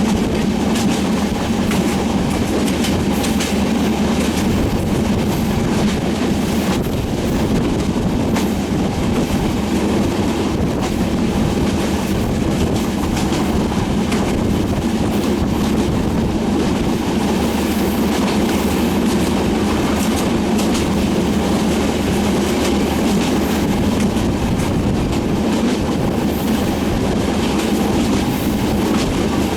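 Passenger train coaches rolling steadily across a rail bridge: a continuous heavy rumble with rapid clickety-clack of wheels over rail joints.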